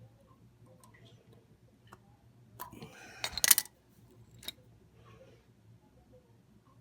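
Hands handling wires and small metal connectors while hooking up a furnace blower's run capacitor: scattered small clicks, a brief burst of clicking and rattling about three seconds in, and one sharp click a second later, over a faint steady low hum.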